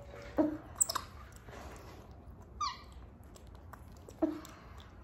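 Capuchin monkey giving a few brief high squeaks, the clearest a quick falling squeal about two and a half seconds in.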